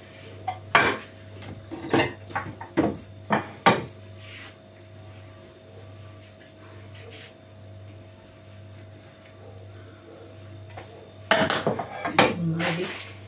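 Kitchenware clattering on a countertop: a run of sharp clinks and knocks as a glass baking dish and a plastic bowl are handled and set down in the first few seconds. A quieter stretch follows, then a dense burst of rustling and knocking near the end.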